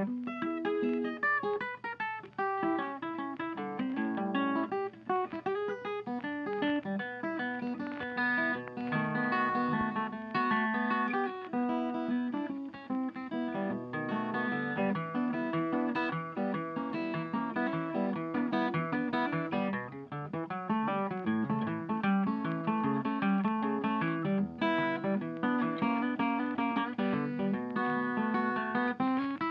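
Background music: acoustic guitar playing a quick run of plucked and strummed notes.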